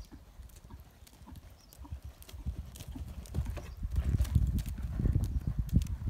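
Grey pony cantering on a gravel arena surface: a run of dull hoofbeat thuds with a gravelly crunch, growing louder about halfway through as the pony passes close, then fading as it moves away.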